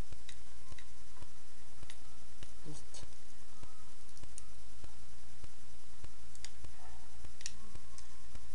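Sparse sharp clicks and taps of a plastic Transformers Bumblebee action figure's parts being moved and snapped into place during its transformation to car mode, over a steady low hum.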